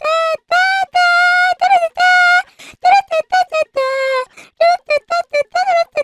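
High-pitched girl's voice singing nonsense 'da da da' syllables a cappella, the anime girl singing meme: quick short notes broken by a few longer held ones.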